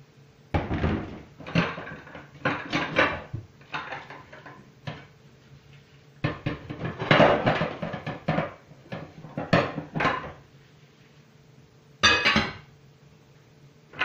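Bowls and pans clattering as they are washed by hand at a kitchen sink: irregular clinks and knocks in bursts with short pauses, and a short louder burst about twelve seconds in.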